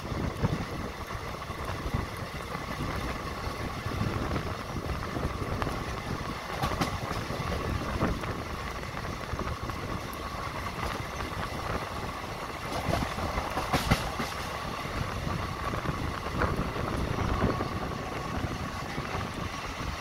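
Hubballi–CSMT express train's coaches running past on a curve: a steady rumble of wheels on rail, with a few sharp clicks as wheels cross rail joints.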